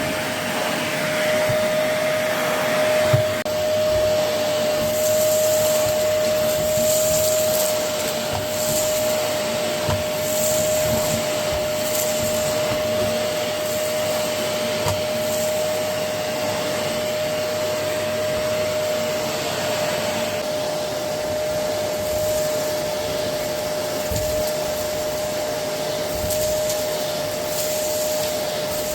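Goblin Essentials bagless cylinder vacuum cleaner running steadily with a constant motor whine, with brief rattles and ticks of debris being sucked up at intervals.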